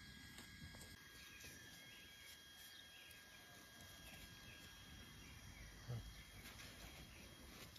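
Near silence: faint outdoor ambience with a thin steady high whine, and a single soft low thump about six seconds in.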